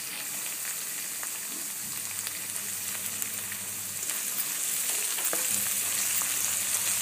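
Chopped vegetables (cauliflower, carrots, peas, capsicum) sizzling in hot oil in a pan. From about four seconds in, a spatula scrapes and stirs them, and the sizzle grows louder.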